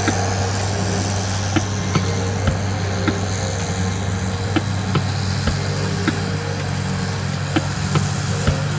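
Motor vehicle engine idling steadily, a constant low hum with short light ticks at regular intervals.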